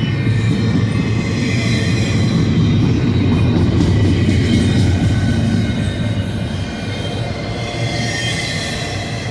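Double-stack intermodal freight train passing close by: a steady rumble of steel wheels on rail, with faint high-pitched wheel squeal over it. It eases slightly after about six seconds.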